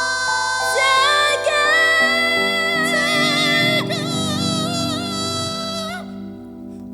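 The closing bars of a small live band's pop ballad: sustained chords with a singer holding a long note with vibrato over them. The music stops about six seconds in.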